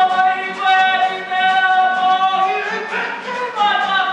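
Mixed-voice school show choir singing together, with long held notes that change pitch around the middle.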